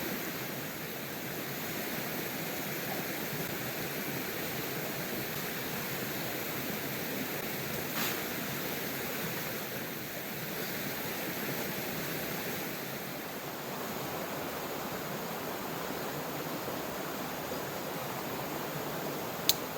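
Steady rushing of water, an even noise with no change. A faint click comes about eight seconds in, and a short, sharp click near the end.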